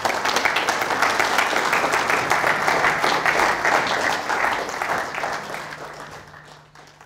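Audience applauding: dense, steady clapping from many hands that fades out over the last couple of seconds.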